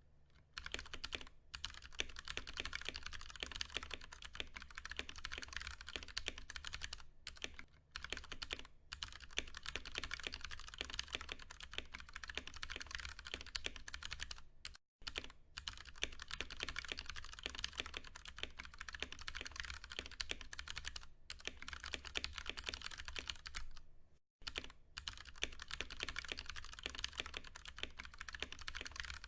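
Continuous fast typing on a Ducky One 2 Mini mechanical keyboard with tactile, non-clicky Cherry MX Brown switches: a dense run of keystroke clacks with a few brief pauses. The sound cuts out completely for a moment twice, about halfway through and again near the end.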